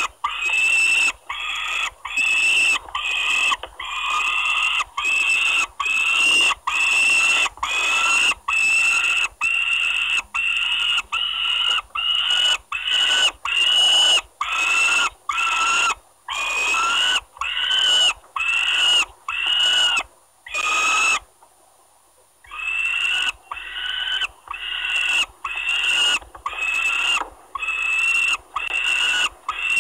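Nestling peregrine falcons giving repeated begging calls, about three calls every two seconds, while squabbling over food the mother has brought. The calls break off for about a second and a half about two-thirds of the way through, then resume.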